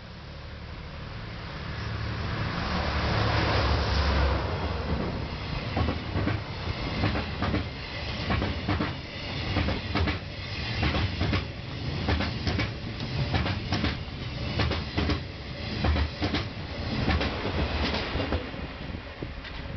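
A freight train hauled by a DD51 diesel-hydraulic locomotive passes. The engine rumble swells over the first four seconds, then the wagons' wheels clatter over the rail joints in a long run of clickety-clack.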